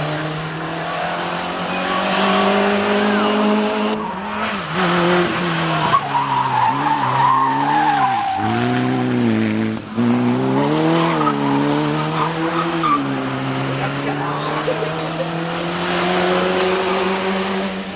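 Group N 1300–1600 cc hatchback race cars at full throttle on a hillclimb, their engines revving hard. The pitch rises and falls with gear changes and braking into hairpins, with tyres squealing in the middle.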